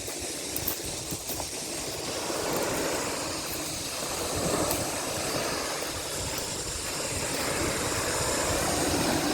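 Sea waves washing onto a beach: a steady rushing that swells and eases every few seconds.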